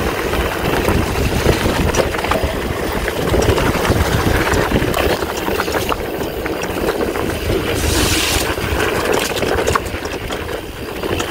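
Wind rumbling over the microphone of a handlebar-mounted camera on a mountain bike descending a wet dirt trail, with scattered clicks and rattles from the bike over the bumps. A brief hiss about eight seconds in.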